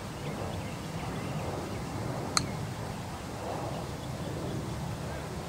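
A golf club striking a ball once in a short chip shot: a single sharp click with a brief ring about two seconds in. Underneath is a steady outdoor background with faint bird chirps.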